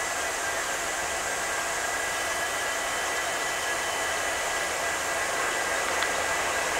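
Twin WDG3A ALCO diesel locomotives approaching under power: a steady, hiss-like engine rush with faint high whining tones, growing a little louder near the end.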